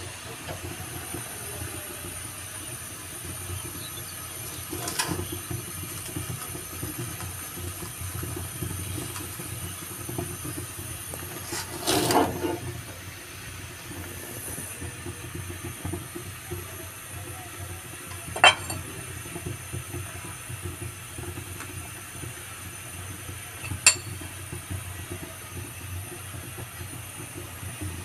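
A metal spatula scrapes and clinks against a steel karahi as cooked rice is stirred and tossed. There are a few sharp clinks, with a longer, louder scrape about halfway through. A steady low rumble and hiss runs underneath.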